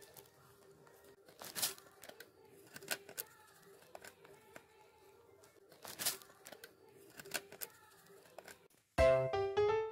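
Quiet, scattered scratchy crinkles and scrapes as a young rabbit nibbles and noses at the foil seal of a jar lid on plastic sheeting, with a few sharper ones about a second and a half, three and six seconds in. Keyboard music starts abruptly near the end.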